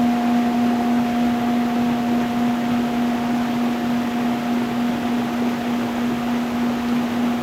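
A steady low drone tone with a fainter higher overtone, held unchanging over the continuous rushing of a stream running over stones.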